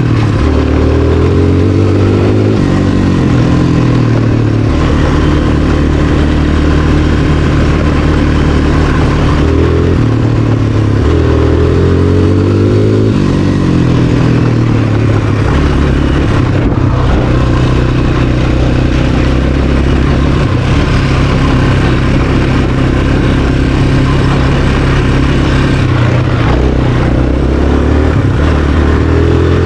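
Suzuki LT-Z250 sport quad's single-cylinder four-stroke engine running hard while being ridden. The engine note climbs and falls back several times as the rider accelerates and eases off.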